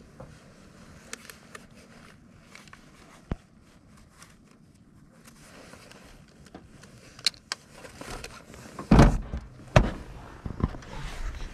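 Handling noises: scattered small clicks and taps as a crappie is taken off a hand-held fish scale and held. About nine seconds in come heavy knocks and rubbing, the loudest sounds, as a hand grabs the camera.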